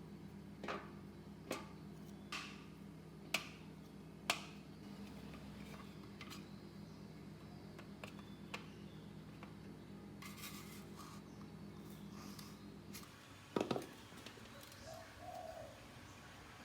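Sharp taps at irregular intervals of about a second, over a faint steady hum that stops about thirteen seconds in.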